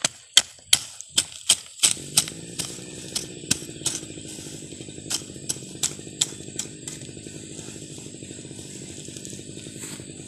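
Small hand hoe chopping and scraping into soil and weeds, sharp strikes about two to three a second, loudest at first and fading after about six seconds. About two seconds in, a steady low motor hum starts and runs on underneath.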